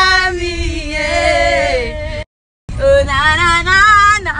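A woman singing long, held notes with a wavering pitch, over the low rumble of a car's cabin. The sound cuts out completely for about half a second a little after two seconds in, then the singing resumes.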